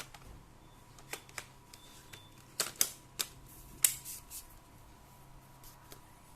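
Laptop casing and components being handled during a RAM and SSD upgrade: scattered light plastic clicks and taps, with four sharp, louder clicks in the middle, over a faint steady hum.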